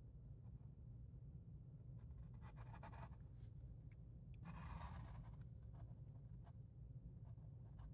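Faint scratching of a pencil drawing lines on paper, with two longer strokes about two and a half and four and a half seconds in and a few short ticks between, over a low steady hum.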